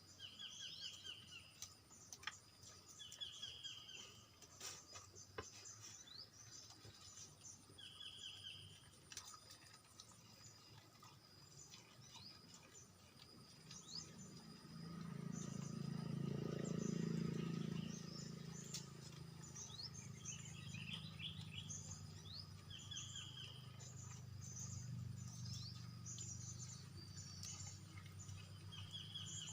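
Birds chirping, one repeating a short phrase of about a second every few seconds among many brief high chirps. A low rumble swells up in the middle and fades.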